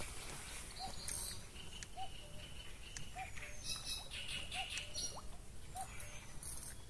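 Fishing reel being wound in while playing a hooked bream, with a short squeak about once a second and light clicks and rustles of handling.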